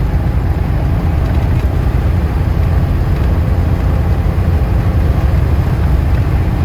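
Cabover semi-truck's Cummins diesel engine and road noise heard from inside the insulated cab while driving, a steady low drone.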